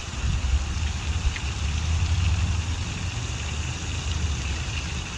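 Low, uneven rumble of wind buffeting the microphone over a steady outdoor hiss, with a faint short chirp about a second in.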